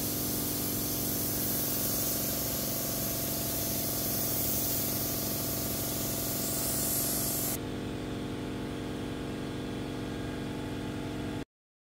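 Paint spray gun hissing steadily as it sprays, over a steady low machine hum. About two-thirds of the way through the hiss drops away, leaving the hum, and then all sound cuts off suddenly near the end.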